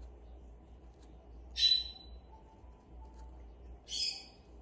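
Monk parakeet (Quaker parrot) giving two short, harsh chirping calls, about a second and a half in and again near the end.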